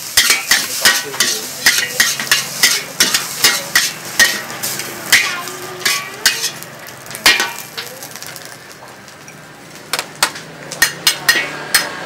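Metal ladle and spatula clanking and scraping against a steel wok as noodles are stir-fried, with sizzling underneath. The clanks come about two to three a second, die away for a couple of seconds about eight seconds in, then return in a quick run near the end.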